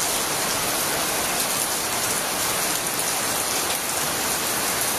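Heavy rain pouring down steadily, a dense even hiss of a tropical downpour.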